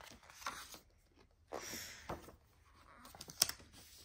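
Paper pages of a thin paperback book being turned by hand: a few soft rustling swishes, then a sharp click about three and a half seconds in.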